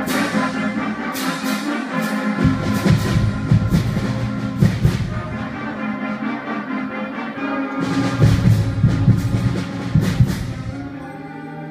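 School cadet concert band playing, flutes and brass over repeated drum and cymbal strikes. The loud full-band passages come twice, and the band eases off near the end.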